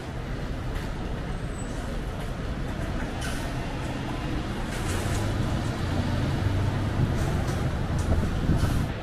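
Road traffic along the terminal curb. A low engine rumble from a passing vehicle builds through the second half and drops off sharply just before the end, with a few short hisses.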